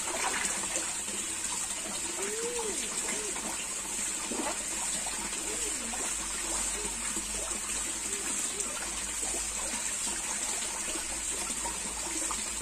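Steady rush and trickle of running water at a koi pond.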